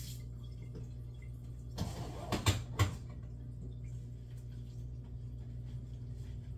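A steady low hum, broken about two seconds in by a short burst of handling noise and two sharp knocks a third of a second apart.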